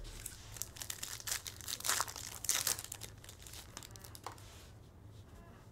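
Foil wrapper of a trading card pack crinkling and tearing as it is ripped open by hand: a dense crackle, thickest about two seconds in, that dies away to light card handling with a single small click.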